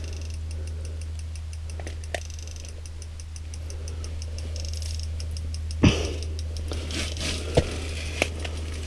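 Hands unhooking a large walleye lying on the ice: a few scattered clicks and knocks of the hook and fish, the loudest about six seconds in, over a steady low hum.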